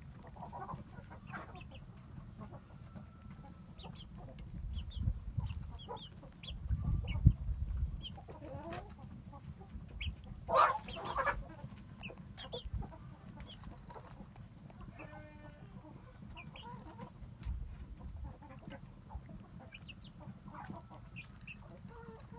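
Chickens clucking in short scattered calls, with one louder, longer squawk about halfway through. A low rumble comes and goes about a quarter of the way in.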